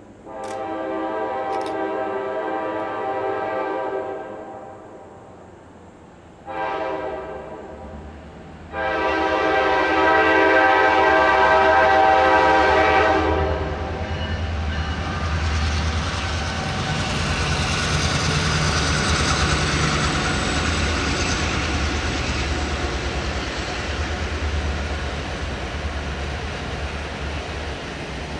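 Diesel locomotive air horn sounding a long, a short and a long blast, then the EMD F-unit-led train passing close by: diesel engines rumbling, followed by the steady rolling of passenger coaches with some clickety-clack of wheels on rail joints.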